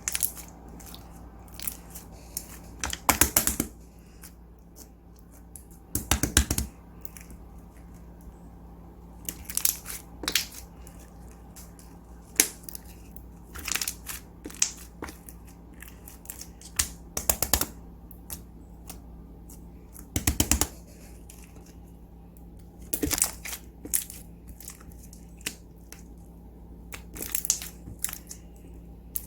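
Slime being squished and kneaded by hand: clusters of crackling, popping clicks every few seconds, the loudest about 3, 6 and 20 seconds in, over a faint steady hum.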